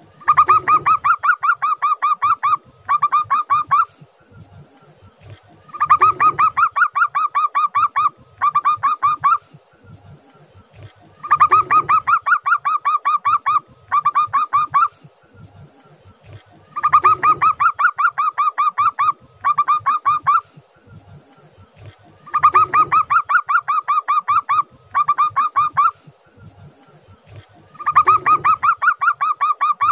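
Zebra dove (perkutut) singing its cooing song in six bouts about five and a half seconds apart. Each bout is a fast run of rapid coo notes lasting about two and a half seconds, then a short break and a shorter run of about a second.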